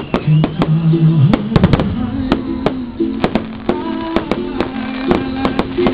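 Aerial fireworks display: many sharp bangs and crackles, several a second, over loud music with long held notes.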